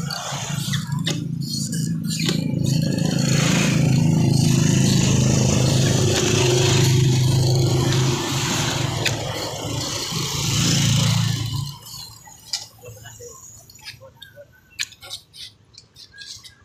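A motor vehicle engine running with a steady low hum, building over the first few seconds and cutting off abruptly about twelve seconds in. Afterwards only faint scattered clicks and taps are heard.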